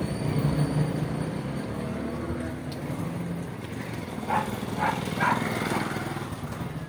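Motorcycle engine running as it approaches and passes close by, a steady low hum. About four to five and a half seconds in come three short, sharp sounds.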